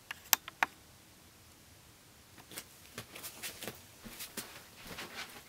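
Two sharp clicks in the first second, then quiet, then a run of small irregular clicks and light rustles from things being handled on a table, starting about halfway through.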